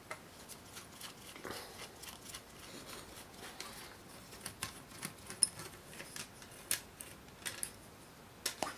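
Small screwdriver working the screws of a fibreglass quadcopter frame's top plate into its standoffs: faint, scattered clicks and taps of metal tool and parts, with one sharper click about five seconds in.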